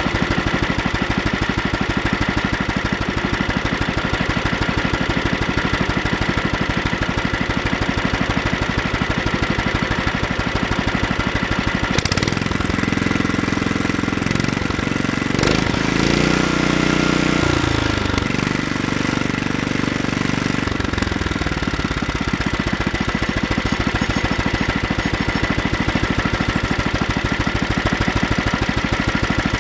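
Kohler Magnum 8 single-cylinder engine on a Troy-Bilt tiller running steadily at idle with even firing pulses. About twelve seconds in its note changes and it runs faster for several seconds, then slows back to the same steady idle near the twenty-one-second mark.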